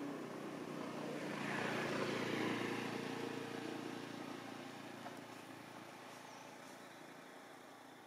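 A motor vehicle passing by: engine and road noise swell to their loudest about two seconds in, then fade away slowly.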